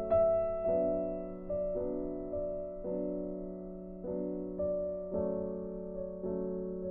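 Slow background piano music: notes and chords struck about once or twice a second, each fading away, over a held low note.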